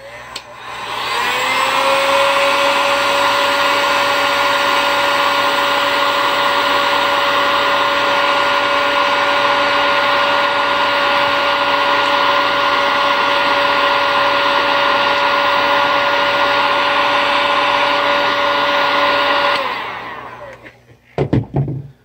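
A 1500 W electric heat gun shrinking heat-shrink tubing onto a battery cable terminal. It is switched on, and its fan spins up to a steady whine over a rush of air. It is switched off a few seconds before the end and winds down.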